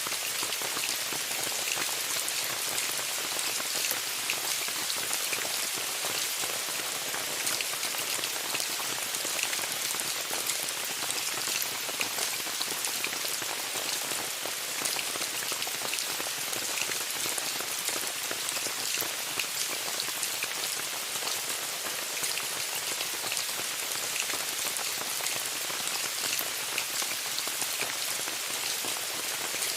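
Steady rain falling on a tent, a constant hiss with many separate drops ticking on the fabric.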